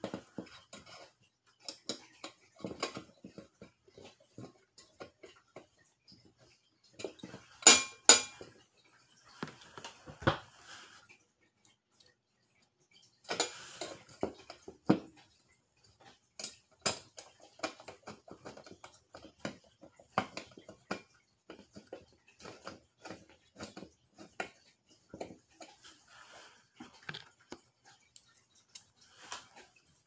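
Irregular small clicks, taps and knocks as a screwdriver and hands work the ceiling fan's plastic canopy and metal mounting hardware, with a pair of sharp, ringing clinks about eight seconds in.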